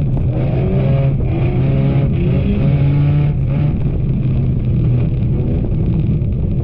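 Enduro race car engines running hard, their pitch repeatedly rising and falling as they rev over a steady low drone.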